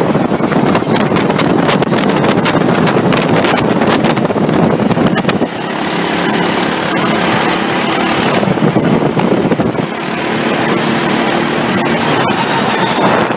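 Racing kart engine heard from on board at full throttle, with wind buffeting the microphone. About five and a half seconds in the engine note drops as the kart slows for a corner. From about ten seconds it rises again as the kart accelerates onto the next straight.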